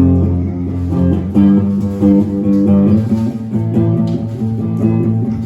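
A band playing the instrumental introduction of a song, led by guitar over a strong low bass line, with steady held chords before the vocal comes in.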